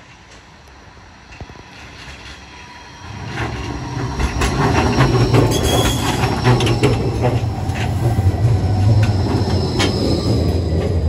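Gold Coast G:link light-rail tram (Bombardier Flexity 2) approaching and passing close by: from about three seconds in, a loud steady rumble of steel wheels on rail, with a thin high whine and several sharp clicks over it.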